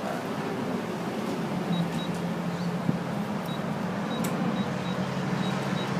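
A steady low machine hum runs throughout. From about two seconds in, short, faint, high-pitched beeps come one after another at uneven intervals, from the door keypad as its keys are pressed. A couple of light clicks are heard.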